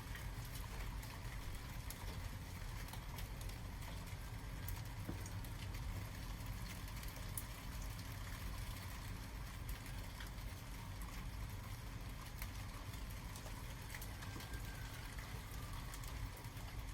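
Rain falling and dripping: irregular ticks of drops over a steady low rumble.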